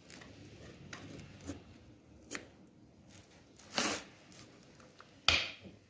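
Scattered clicks and scrapes of hands and tools working on the stuck plastic casing of an e-bike battery pack as it is prised open, with a longer scrape just under four seconds in and a sharp snap about a second later.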